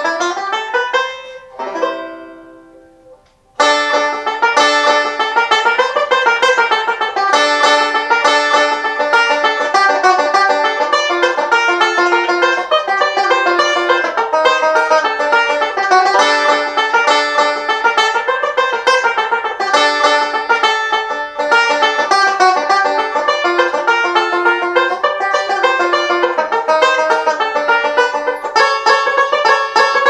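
1933 Bacon & Day Senorita tenor banjo playing a Spanish piece: ringing notes that die away at the start, a brief pause about three and a half seconds in, then a fast, unbroken run of picked notes.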